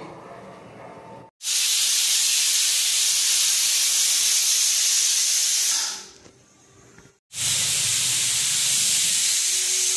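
Pressure cooker on a gas stove hissing steadily as steam escapes from its vent. The hiss starts suddenly about a second and a half in, stops around six seconds, then starts again abruptly a second later and carries on.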